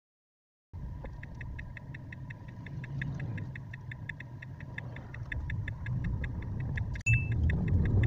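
Tesla turn-signal indicator ticking steadily and quickly over road and cabin noise as the car drives through a roundabout. About seven seconds in a short beep sounds and the road noise grows louder as the car speeds up.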